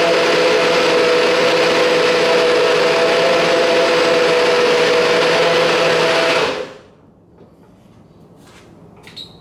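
Nutribullet blender motor running steadily, blending a smoothie with a loud whirring hum, then winding down and stopping about two-thirds of the way through. Near the end come a few light clicks as the plastic cup is lifted off the motor base.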